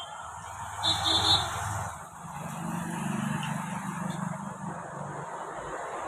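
Steady road traffic noise with a short high-pitched beep, like a vehicle horn toot, about a second in.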